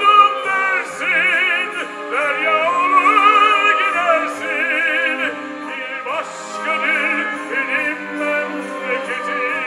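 Tenors singing in operatic style with a wide vibrato, accompanied by a string orchestra.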